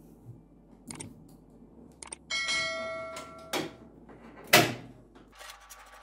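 Clicks and knocks of a PC cabinet's hard drive tray being opened and handled. After one knock, just past two seconds in, there is a metallic ring lasting about a second, and the loudest knock comes about two seconds later.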